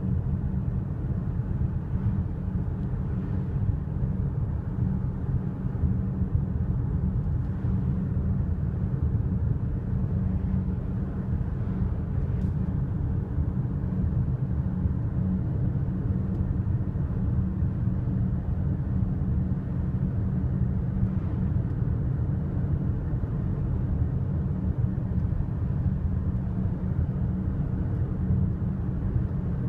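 A car driving steadily at road speed, heard from inside the cabin: a constant low rumble of tyre, road and engine noise.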